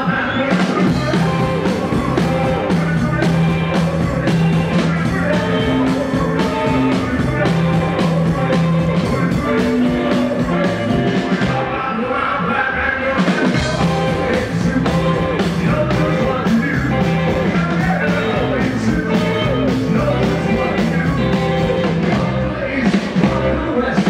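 A rock-and-roll band playing live: electric guitar and upright double bass over a steady, regular drum beat.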